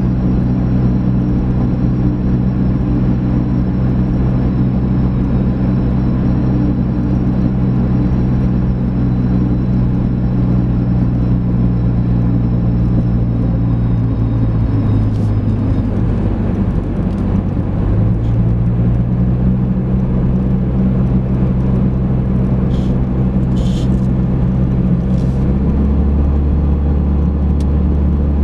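Chrysler PT Cruiser's four-cylinder engine and tyre noise heard from inside the cabin while cruising, a steady hum. The engine note eases off about halfway through, picks back up, and drops to a lower, heavier note near the end.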